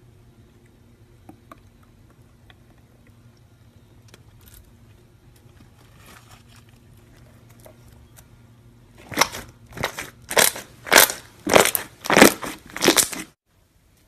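Slime squished repeatedly with a racket, giving about seven loud crackling, crunching squishes roughly 0.6 s apart that stop abruptly. They are preceded by faint scattered clicks over a low steady hum.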